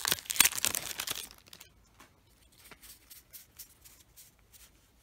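Foil booster-pack wrapper of a Magic: The Gathering pack crinkling as it is torn and pulled open, for about the first second. After that come only faint, sparse ticks as the trading cards are handled.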